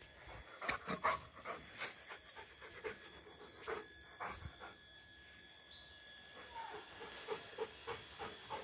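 Rottweiler panting as it moves about on grass, with scattered rustles and light taps; the panting comes quick and even near the end.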